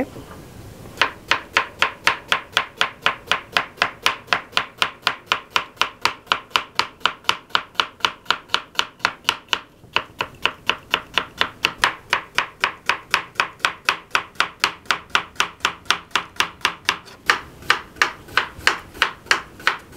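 Kitchen knife slicing a red onion on a wooden chopping board: a steady run of quick knife strikes on the board, about four a second, starting about a second in, with a brief pause about halfway.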